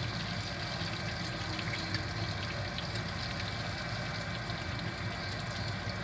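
Hot frying grease in a skillet sizzling steadily, with scattered small crackles and pops over a low hum.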